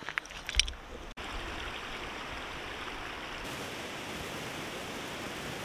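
A few light clicks of loose slate pieces being handled, then, after a sudden cut about a second in, a steady even rushing noise of outdoor ambience.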